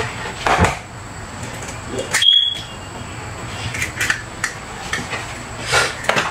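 Eggs being cracked against a bowl into raw ground beef: scattered sharp taps and shell clicks. A short high-pitched beep sounds once, about two seconds in.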